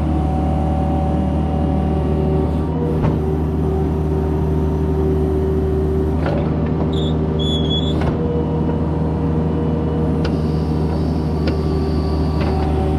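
Diesel engine of a Kubota KX71-3 compact excavator running steadily, with a higher whine that shifts pitch a few times and several sharp knocks along the way.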